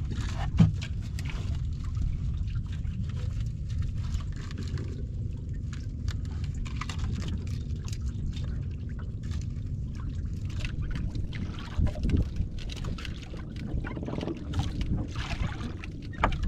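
Water splashing and sloshing around a small fishing boat, with a steady low rumble and many small knocks and splashes, one sharper knock about half a second in.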